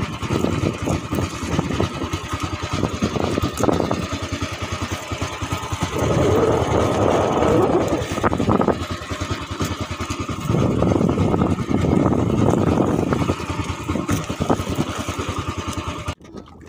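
Small fishing boat's engine running steadily under way, with rapid even firing pulses, wind and water noise on top. The sound drops off suddenly near the end.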